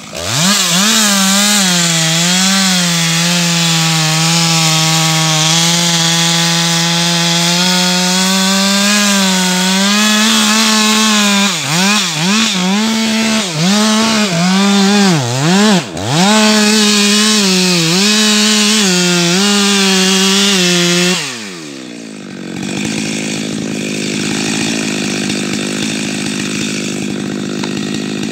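Two-stroke chainsaw running at full throttle, cutting through a tree trunk to fell it. Its note dips and recovers several times midway as the chain loads up in the wood. About 21 seconds in the saw is let off and falls to a lower, quieter running for the last several seconds.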